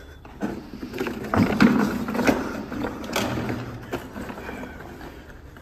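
Red plastic chairs being dragged and set down on a concrete floor as two men sit: scraping with several sharp knocks through the first four seconds, then dying away.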